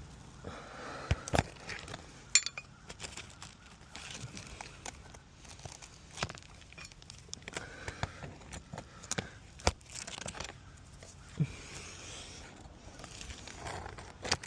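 A metal roofing nail puller working under lifted asphalt shingles to pull nails, with scattered sharp clicks and short scrapes.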